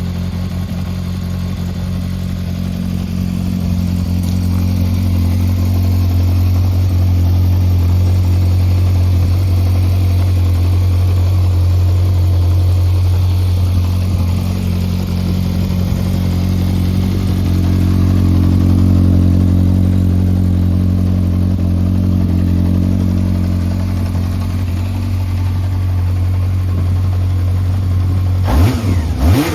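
Yamaha XJR400 (1993, 4HM) air-cooled inline-four with a Moriwaki exhaust idling steadily, then revved with quick throttle blips near the end. The seller describes the engine as running well with no abnormal noise.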